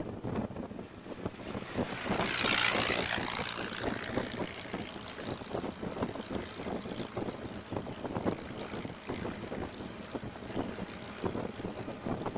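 Ford Model T's four-cylinder engine running at road speed, heard from inside the open car, its firing pulses mixed with wind on the microphone. A brief rushing swell of noise about two seconds in.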